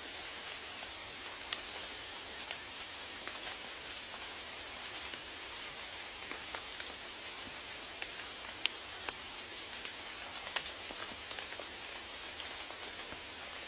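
Steady rain falling, an even hiss with many separate drops ticking on a surface, a few of them louder than the rest.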